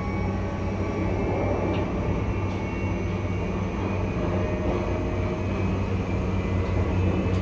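Interior running sound of a JR E235-1000 series electric train: a steady rumble of wheels on rail with faint steady tones from the Mitsubishi full-SiC VVVF inverter and traction motors.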